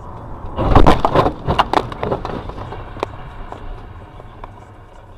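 Car crash: a burst of loud crashing impacts and rattling starting about a second in and lasting about a second and a half, followed by a few lighter knocks, over a steady low vehicle rumble.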